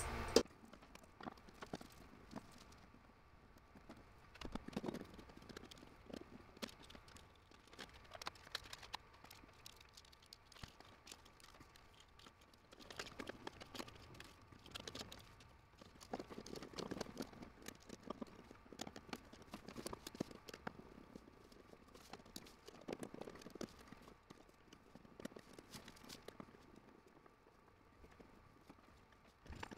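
Faint scattered clicks, taps and scrapes of a square-drive screwdriver and hands working a failed GFCI receptacle out of its metal wall box, over a faint steady high tone.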